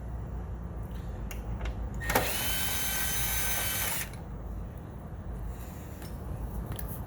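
Power drill-driver spinning for about two seconds, backing out a belt cover screw, with a sharp click as it starts; a few light clicks of tool handling around it.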